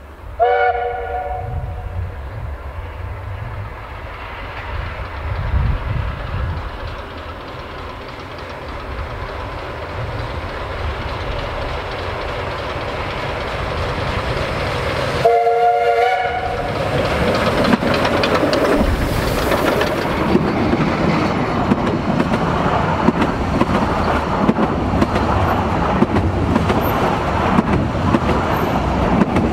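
Narrow-gauge Garratt steam locomotive (a South African NGG16) sounding its whistle twice, once just after the start and again about fifteen seconds in, each blast about a second and a half long, over a low rumble as it approaches. From about sixteen seconds on, the locomotive and its coaches pass close by, much louder, with dense wheel-on-rail knocking.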